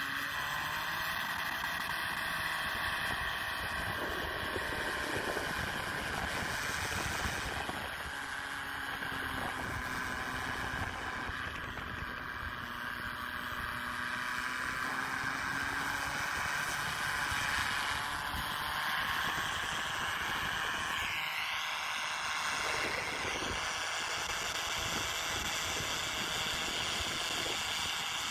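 SUV engine running at high revs as it forces its way through deep snow, its pitch held for long stretches, then climbing and dropping back about three-quarters of the way through.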